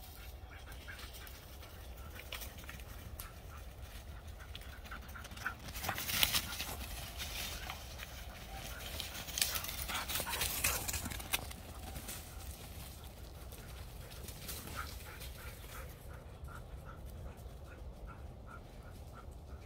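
Flat-coated retrievers running through dry fallen leaves, their paws rustling loudly as they dash past close by, about six seconds in and again around ten seconds in. Short, quick panting sounds repeat through it.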